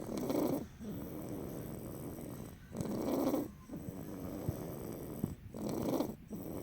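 Snoring: three louder snores about three seconds apart, with softer steady breathing between them.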